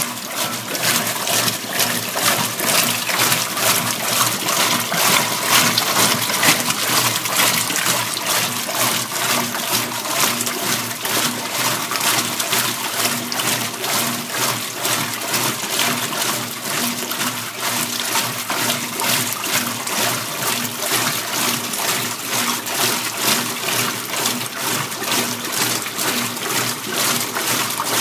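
Kenmore top-loading washing machine running an empty rinse cycle: water rushing and splashing in the tub, steady throughout, with a faint low hum from the machine underneath.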